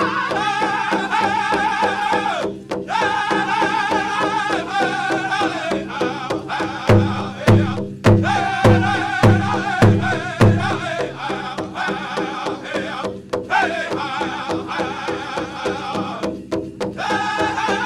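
Powwow drum group singing a prairie chicken dance song over a steady beat on a large drum, the voices breaking off briefly between phrases. From about seven to ten seconds in, a run of much louder, accented drum strikes stands out.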